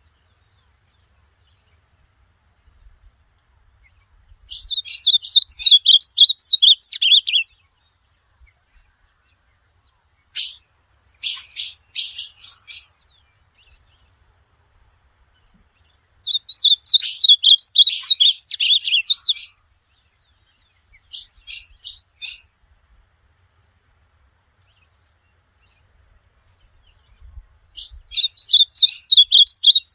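Ultramarine grosbeak (azulão) singing: about five short phrases of quick, high warbled notes, each a second or three long, separated by pauses of several seconds.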